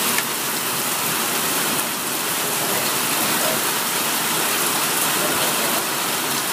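Heavy rain pouring down, a steady even hiss of drops hitting the deck and wall.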